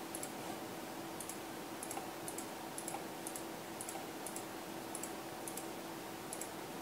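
Computer keyboard keystrokes and mouse clicks, scattered and irregular, about one or two a second, over a steady faint hum.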